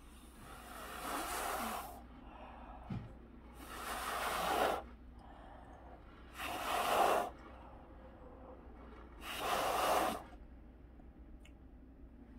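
A person blowing hard on wet poured paint to push it across the surface: four long, forceful breaths of about a second each, with short pauses between.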